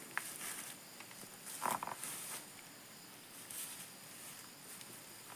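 Faint rustling and crackling as leaves and stalks are handled on the ground, in a few short bursts with the loudest about a second and a half in, over a steady high drone of insects.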